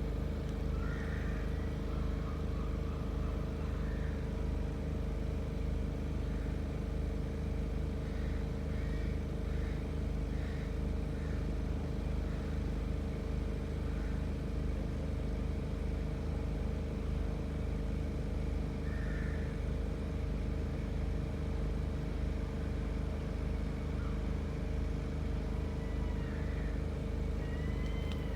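Generator engine running at a steady, constant speed with an even low hum that never changes. A few faint, short high chirps come through now and then.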